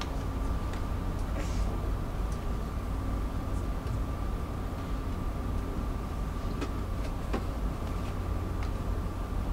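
Steady low drone of an Incat wave-piercing catamaran car ferry under way, heard inside its passenger lounge, with a thin steady whine above it and a few faint clicks.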